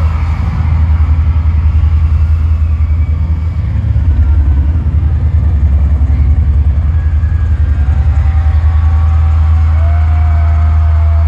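Loud arena sound system recorded on a phone and overloaded, dominated by a rapid pulsing low rumble, with faint pitched voice-like lines coming in near the end.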